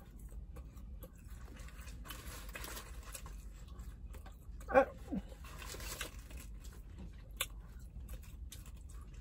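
A person chewing a mouthful of fried chicken biscuit close to the microphone, with small wet mouth clicks, and a brief vocal sound about five seconds in.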